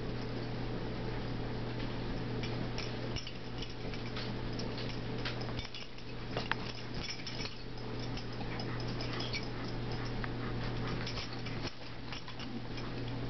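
Two Papillon puppies play-wrestling: scuffling, with many small clicks and taps of paws and claws on a rug and wooden floor. A steady low hum runs underneath.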